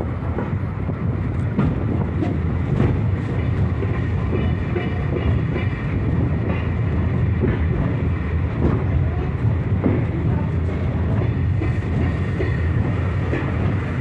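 Open-sided wooden passenger coach of a steam-hauled train rolling along the track: a steady low rumble with scattered clicks of the wheels over rail joints.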